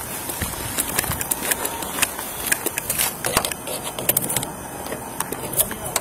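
Handling noise from a chest-worn body camera as the officer moves: irregular clicks, knocks and rustling of clothing and gear against the microphone, over a steady background noise.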